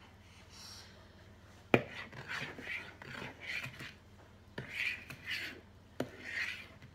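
A metal fork scraping round a plastic mixing bowl as a child stirs a fluffy butter, sugar and egg mixture, in short rasping strokes. Two sharp knocks of the fork against the bowl, about two seconds in and near the end.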